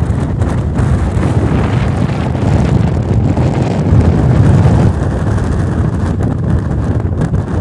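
Strong wind buffeting the camera's microphone: a deep rushing noise that rises and falls in gusts, loudest about four seconds in and easing a little after five.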